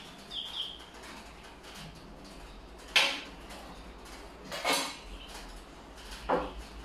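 Philips air fryer parts being handled: the plastic handle and the nonstick basket click and clatter against each other as the handle is fitted. A sharp click about three seconds in is the loudest, followed by a rattle and then a knock near the end.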